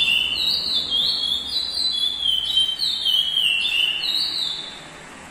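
Caged curió (chestnut-bellied seed-finch) singing: a run of clear whistled notes that step up and down in pitch, stopping about four and a half seconds in.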